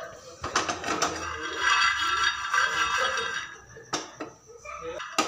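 Raw peanuts rattling in a pan as they are stirred while being roasted, with a few sharp clicks of the utensil against the pan.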